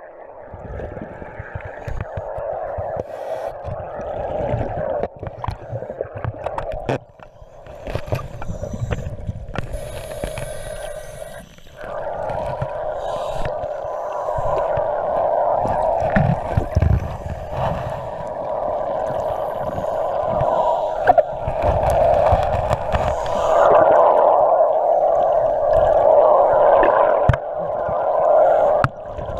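Muffled underwater rushing and gurgling of water through a GoPro's waterproof housing, with irregular low rumbles as the camera moves near the surface.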